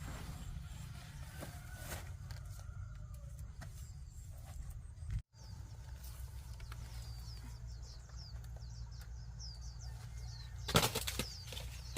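Many short, high chirps from small birds in quick succession over a steady low rumble, with one sudden loud crackle near the end.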